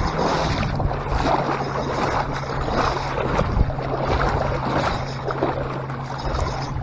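Shallow lake water sloshing and splashing around an angler's waders as he wades, with wind on the microphone and a steady low motor hum underneath.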